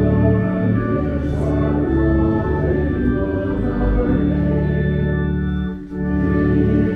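Church organ playing a hymn tune in slow, held chords, with a brief break in the sound about six seconds in.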